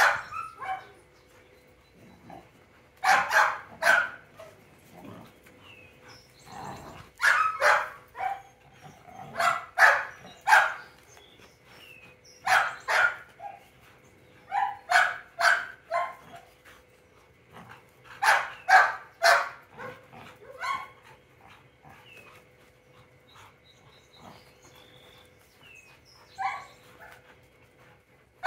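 Large dog giving playful barks in quick clusters of two to four, again and again, while it plays tug.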